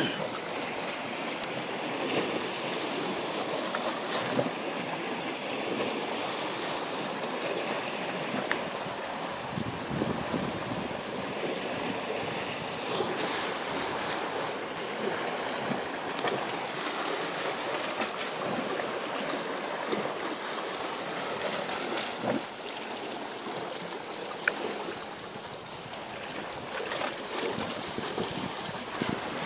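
Sea waves washing against shoreline rocks: a steady wash of water, with a few short sharp ticks here and there.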